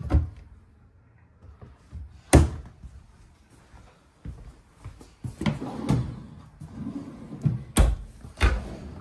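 Kitchen cabinet doors and drawers of a fifth-wheel RV being opened and shut, with a few sharp knocks as they close. The loudest comes about two and a half seconds in and two more near the end, with softer knocks and handling sounds in between.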